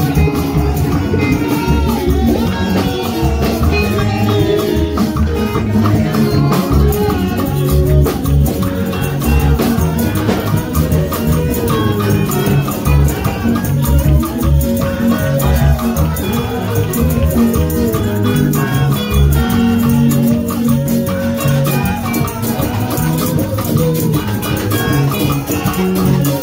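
Upbeat music with a steady pulsing bass beat and fast percussion.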